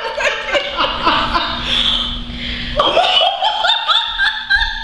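Women laughing hard in repeated, high-pitched bursts, with a fresh run of laughter about three seconds in.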